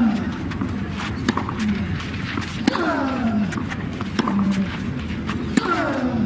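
A tennis player's vocal exclamation, a falling shout, repeats three times about three seconds apart. Sharp racket-and-ball strikes and court sounds are heard around it.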